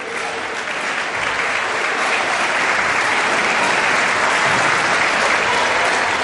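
Basketball crowd in a gym applauding and cheering, swelling over the first second or so and then holding steady.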